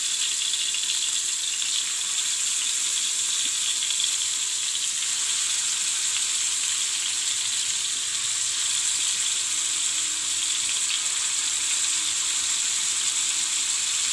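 Marinated chicken pieces sizzling steadily in hot oil on a flat tawa griddle as more pieces are laid in by hand.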